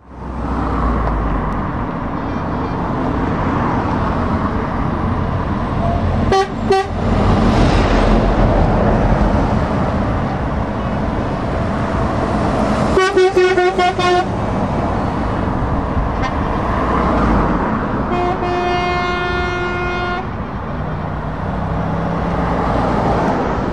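Heavy trucks driving past at road speed, their engines and tyres making a steady traffic noise. Truck horns sound over it: two short blasts about six seconds in, a quick string of toots around thirteen seconds, and one long held blast around eighteen seconds.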